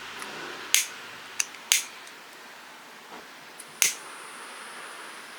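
Four sharp, separate clicks over a faint steady hiss: three within the first two seconds, and one more about four seconds in.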